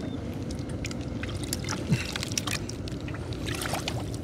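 Fishing boat on the river at night: a steady low rumble with scattered light clicks and knocks from handling the net and catch aboard, one slightly louder knock about two seconds in.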